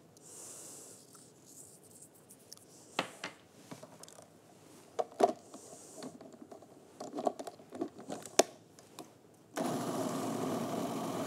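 A few sharp clicks and knocks as a food processor is handled, then about ten seconds in the food processor switches on and runs steadily, blending a chickpea and avocado mixture.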